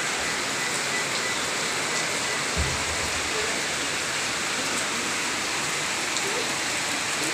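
Steady rushing hiss of fast-flowing brown floodwater. A brief low thump about two and a half seconds in.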